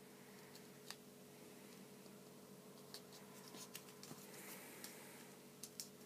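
Faint crackles and rustles of origami paper being folded and creased by hand, with a few small clicks scattered through, over a low steady hum.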